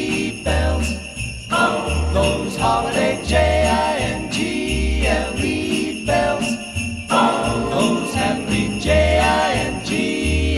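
Christmas music with sleigh bells jingling throughout over a melody and a deep bass note about once a second.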